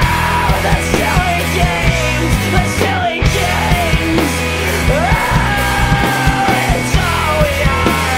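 Loud rock music from a full band: a heavy, driving bass and drum beat under lead lines that slide up and down in pitch, with a brief break about three seconds in.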